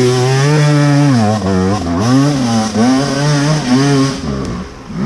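Enduro dirt-bike engine revving hard under load on a hill climb, the throttle opened and eased repeatedly so the pitch rises and dips, falling away near the end.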